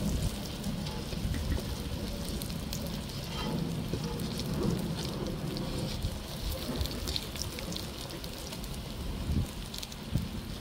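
Bammy and onion pieces frying in shallow oil, with a steady crackling sizzle over a low rumble and a few sharper ticks near the end.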